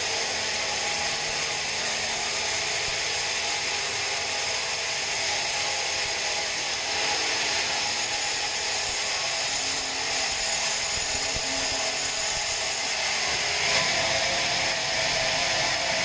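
Sawmill bandsaw cutting through a pine log: a steady, high-pitched, hissing machine noise.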